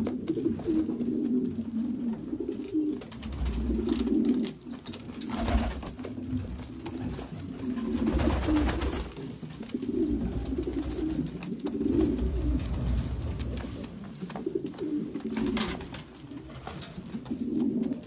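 Domestic pigeons cooing in a loft, many birds' coos overlapping in repeated bouts, with low rumbles at intervals underneath.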